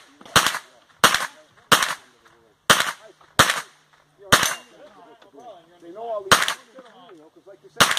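A string of close gunshots, about eight sharp cracks at uneven intervals of roughly half a second to two seconds, from a shooter engaging targets in a practical shooting match.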